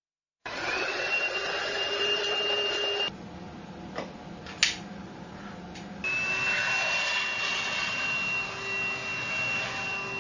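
TINTON LIFE VC812 cordless handheld vacuum cleaner running, its motor giving a steady high whine over the rush of air. About three seconds in it drops to a quieter, lower hum with a couple of sharp clicks, then returns to the full whine about three seconds later.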